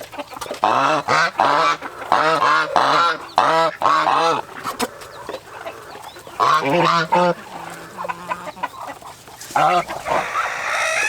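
Domestic geese honking in several bouts of quick, repeated calls, with short pauses between bouts.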